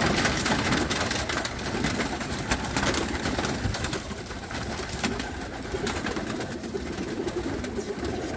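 Racing pigeons cooing in a loft, with scattered clicks and rustles of the birds moving about.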